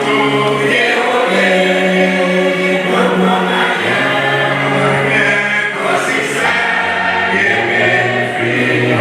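Choir singing a hymn in several voice parts, with long held notes over a low bass line.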